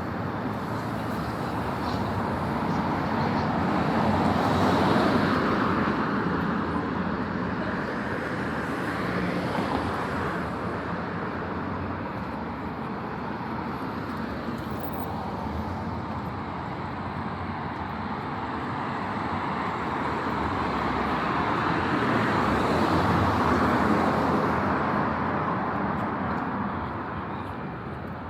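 Street traffic: cars passing on a city street, with the tyre and engine noise swelling up and dying away twice, about five seconds in and again past the twenty-second mark.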